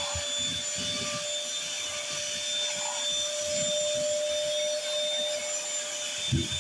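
Stick vacuum cleaner's motor running at full speed with a steady high whine, pushed back and forth in a pickup test with irregular brushing and scraping sounds underneath.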